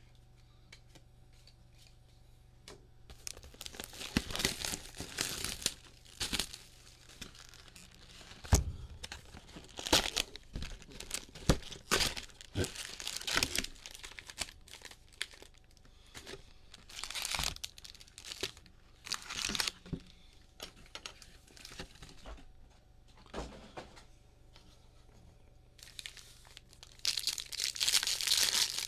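Foil wrappers of Bowman trading card packs being torn open and crinkled by hand, in irregular rustling and crackling bursts with sharp clicks that begin about three seconds in.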